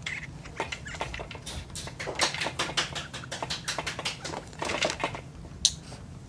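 Rapid, irregular small clicks and taps from a baby chewing and sucking on a pacifier while moving in a plastic activity jumper. They are densest in the middle, with one sharp click near the end.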